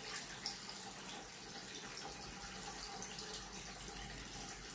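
A small brush scratching around inside the stainless steel body of a Kinu M47 hand coffee grinder, dislodging coffee grounds stuck to the inner wall. It is a faint, irregular scratching over a steady background hiss.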